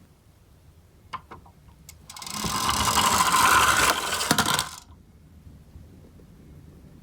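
Toy minicar's wheels rolling and rattling along a sloped track. A few light clicks come first, then a loud rattling roll of about two and a half seconds, which dies away about two thirds of the way in.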